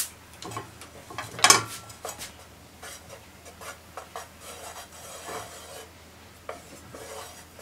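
Chopsticks dragging a pat of butter around a nonstick frying pan: light, irregular scraping and rubbing on the pan's surface, with one louder knock that rings briefly about a second and a half in.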